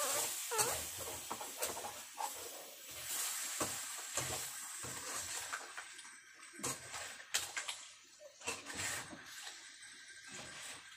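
Cooking sounds: a faint frying sizzle that fades over the first few seconds, with scattered clicks and knocks of utensils and dishes. A few short high chirps come in the first second.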